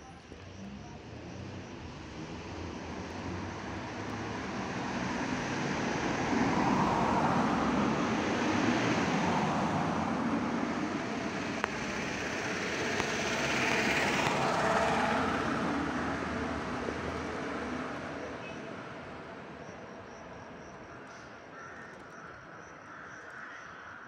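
Motor noise of something passing by: a broad rushing sound that swells over the first six seconds, stays loud until about fifteen seconds in, then fades away.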